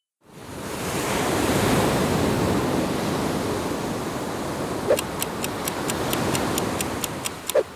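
Ocean surf: a wave rushing in and washing over. About five seconds in, a rapid clock-like ticking of about five ticks a second joins the wave sound, with a short blip where it starts and another where it ends.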